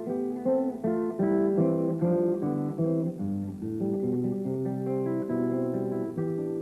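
Background music on acoustic guitar: picked notes and chords over a moving bass line.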